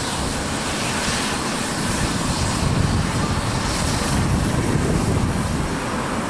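Eurocopter EC135 P2+ twin-turbine helicopter running on the helipad for take-off: a steady rush of turbine and rotor noise over a low, uneven rumble of rotor wash on the microphone.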